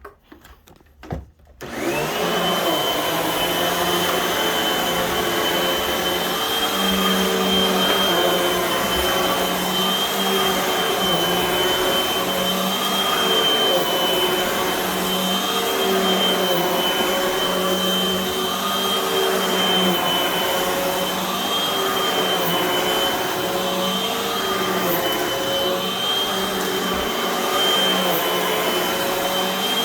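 Hoover WindTunnel upright vacuum cleaner switched on about two seconds in, then running steadily on carpet with a high whine over its motor hum. Its lower tones swell and ebb as it is worked back and forth.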